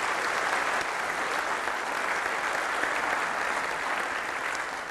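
Audience applauding, a steady wash of many hands clapping that begins to die away at the very end.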